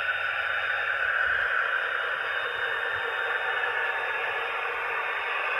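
Dapol Class 68 model diesel locomotive's DCC sound decoder playing the diesel engine sound through its small onboard speaker as the model runs along the track: a steady, thin, hissy engine sound with almost no bass.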